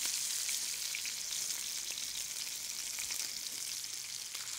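Sea scallops searing in hot oil in a pan, a steady sizzle. The scallops are golden-brown on the first side and are being turned to brown the second.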